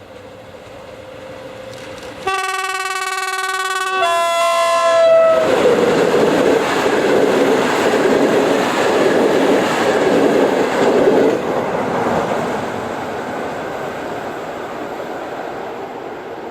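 Horn of a PKP EU07 electric locomotive sounding two tones as the passenger train approaches at speed. The second tone drops in pitch as the locomotive passes. The loud noise of the locomotive and coaches passing on the rails follows, then fades away.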